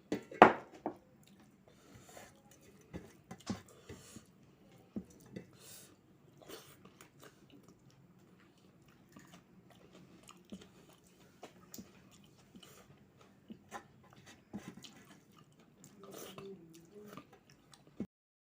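A person chewing food close to the microphone, with scattered short crunches and wet clicks of the mouth. One loud sharp crunch or knock comes about half a second in.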